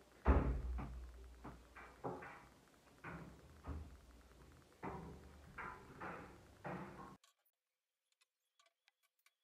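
Clothes rustling and being handled as they are shaken out and folded, a run of short swishes with low bumps under them, cutting off abruptly about seven seconds in.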